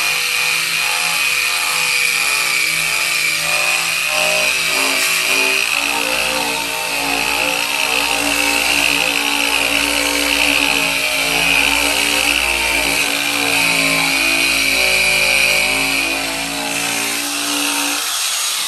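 Handheld air-powered sander running against the bare sheet-steel quarter panel, a steady high whine with the grind of the pad on the metal, smoothing the welded seam before body work. It eases off near the end.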